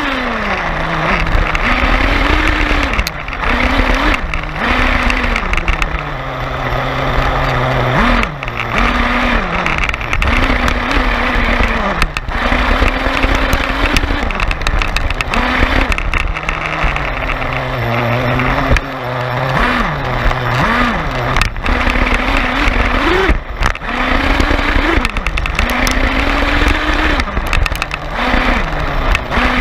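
RC monster truck's motor revving up and falling back again and again as it is driven, heard from a camera on the truck, with constant tyre and chassis rattle and frequent knocks over the ground.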